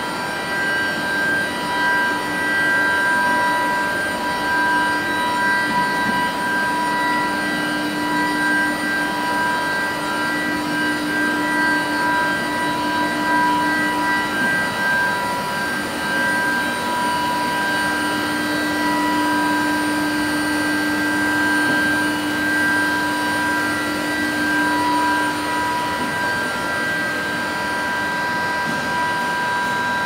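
Long-bar induction hardening and tempering line running: a steady high-pitched whine of several tones over constant machine noise. A lower hum comes and goes, dropping out about halfway through and again near the end.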